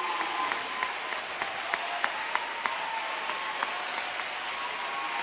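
A large crowd applauding, a dense patter with individual sharp claps standing out; the applause eases slightly after the first second.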